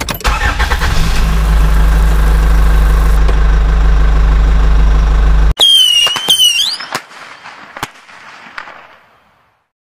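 A loud, steady engine running for about five and a half seconds, then cutting off suddenly. A high gliding whistle-squeal follows, then a hiss that fades away.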